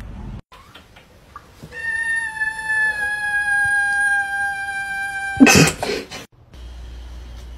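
A black-and-white kitten gives one long meow of nearly four seconds, its pitch sinking slightly. It ends in a brief loud noisy burst.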